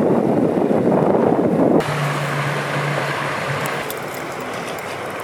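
Wind buffeting an outdoor camera microphone, a heavy low rumble, cut off abruptly about two seconds in by a different outdoor recording: a steady hiss with a low hum for about a second. These are jarring cuts between field clips spoiled by wind noise.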